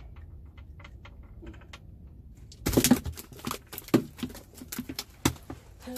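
Handling noise of a fish being unhooked and a fishing line and hook being worked by hand: scattered light clicks, then a burst of rattling clicks about two and a half seconds in, followed by a few sharp taps.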